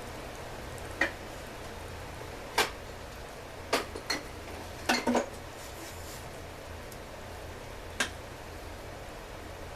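Metal tools and parts clinking and clacking as they are handled during a small-engine teardown: about eight sharp knocks at irregular times, three of them close together about five seconds in, over a steady low hum.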